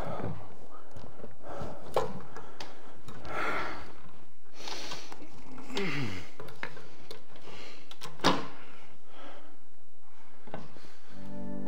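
Handling noises as a fat-tire e-bike rear wheel is lifted and seated into the frame: scraping and rustling, with a sharp knock about two seconds in and a louder one a little past eight seconds.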